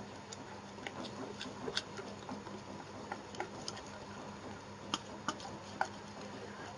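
Wire whisk clicking irregularly against the sides of a bowl as flour is mixed into egg batter, with a few sharper clicks around five to six seconds in.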